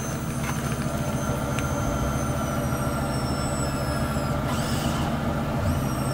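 HWH slide-out hydraulic pump running to retract the cylinders while the system is bled: a thin high whine that slowly falls in pitch, stops about four seconds in and starts again near the end, over a steady low drone.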